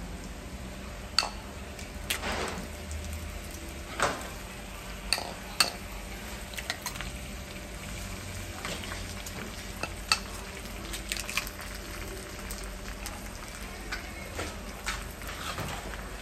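Minced meat and eggs frying in wide flat steel pans, a steady sizzle, with a dozen or so short sharp clinks of metal pans and utensils scattered through.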